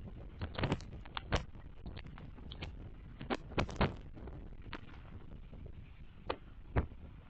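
Steady low wind rumble on an outdoor microphone, broken by about ten sharp, irregular clicks and knocks, several clustered together near the start and around three and a half seconds in.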